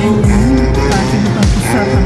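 Music playing, with a wavering melody and deep bass notes that slide downward over and over.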